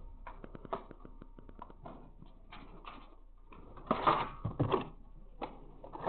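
Scattered small clicks, taps and rustles of objects being handled close to the microphone, with light footsteps, growing louder for about a second around four seconds in.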